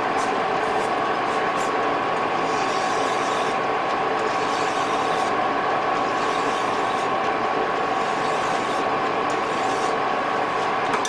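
Metal lathe running with a steady whine while a taper is turned on a collet blank, the tool fed by hand on the compound slide; a hiss of cutting comes and goes in several stretches.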